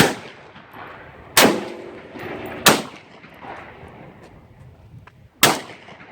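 Four gunshots at uneven spacing, the first three about a second and a half apart and the last after a pause of nearly three seconds, each ringing out briefly.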